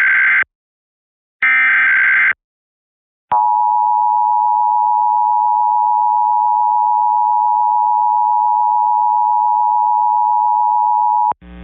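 Emergency Alert System SAME header: the end of one and then a whole further short burst of screeching data tones. After about a second's pause, the EAS two-tone attention signal (853 and 960 Hz together) sounds steadily for about eight seconds and cuts off, announcing a statewide Required Monthly Test.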